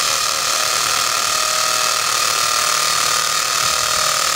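Corded electric drill boring steadily into a concrete wall, running without a break with a constant high whine over the grinding of the bit in the masonry.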